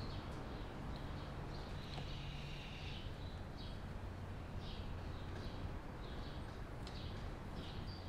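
Chainsaw chain rivet being spun in a Carlton rivet spinner as its crank is worked: faint, irregular short metal-on-metal squeaks over a steady low hum.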